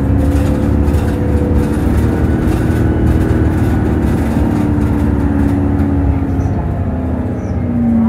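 Cummins ISL diesel engine and Allison EP50 hybrid drive of a New Flyer DE60LFR articulated bus running under way, heard from inside the cabin: a steady engine and drive hum whose pitch sinks a little near the end.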